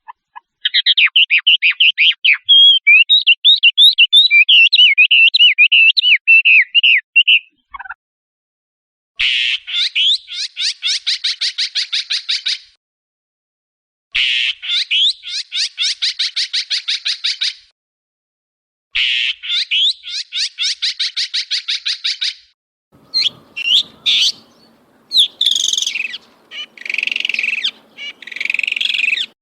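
Shrike calling loudly: a few seconds of fast, varied chattering, then three separate bouts of rapid rattling notes, each about three seconds long, then harsher squawking calls near the end.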